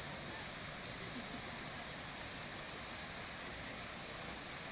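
Steady rush of a waterfall: an unbroken hiss of falling water at a constant level.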